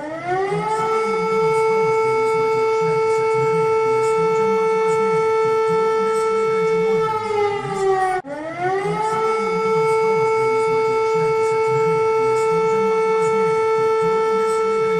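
Warning siren of an emergency alert alarm: a tone that rises over about a second, holds steady for several seconds, sags slightly, then breaks off and rises again about eight seconds in for a second cycle.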